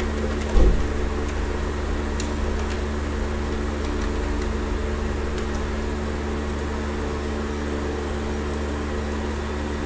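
Steady electrical hum with fan-like noise, several fixed tones under it. A low thump comes about half a second in, and a few faint keyboard clicks follow as text is typed.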